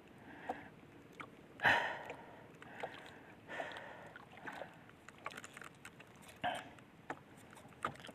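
A man breathing hard after paddling, a few heavy breaths, the strongest about two seconds in, with small clicks and knocks of hand-line fishing gear being handled in a wooden outrigger boat.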